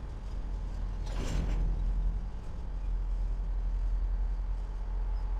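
Freight train rolling slowly past, a steady low rumble from the passing cars, with a brief hiss-like burst about a second in.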